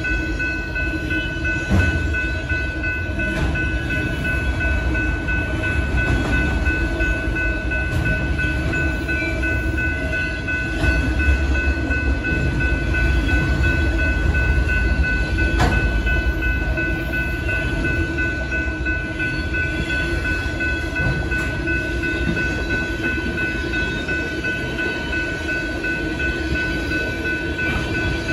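Freight cars of a BNSF train rolling past close by, a steady rumble of wheels on rail with a few sharp clacks, and a steady high-pitched tone over it.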